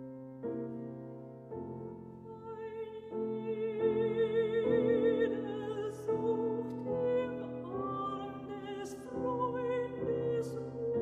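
Soprano singing a German art song with piano accompaniment. The piano plays alone at first, then the voice enters a few seconds in with a wide vibrato.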